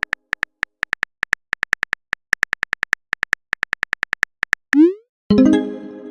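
Phone keyboard typing clicks in a quick, slightly uneven run of about four to five taps a second. Near the end they give way to a short rising pop and then a brief chiming message tone, the sound of a text being sent and arriving.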